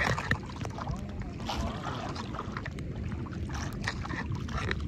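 Wind rumbling on the microphone and water lapping against a small outrigger boat at sea, with a few small knocks.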